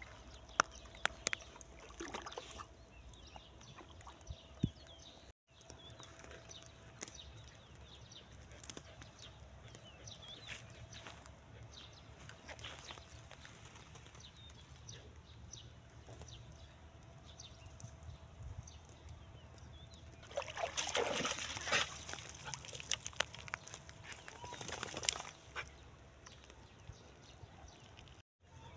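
Water sloshing and lapping around a dog wading in a muddy canal, with a few sharp clicks in the first few seconds and a louder spell of water noise lasting several seconds about two-thirds of the way through.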